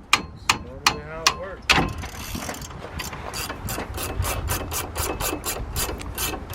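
A few sharp hammer blows on metal, about two a second, then a hand ratchet wrench clicking steadily, about five clicks a second, as a nut is worked on a car's suspension.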